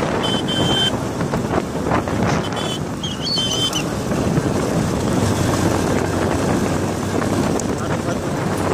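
Heavy wind buffeting on the microphone while filming at speed beside galloping horses: a loud, even rush of noise. A few brief high-pitched tones cut through it in the first few seconds.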